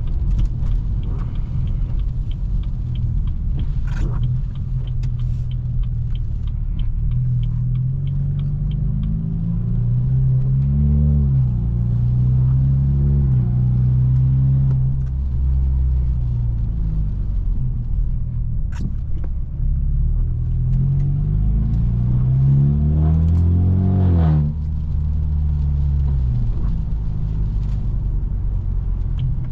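Straight-piped BMW F30 328i's turbocharged four-cylinder engine and exhaust running under way, its note rising in pitch as the car accelerates about ten seconds in and again around twenty seconds in, each time dropping off suddenly at a shift or lift. Two brief sharp clicks cut in, around four and nineteen seconds in.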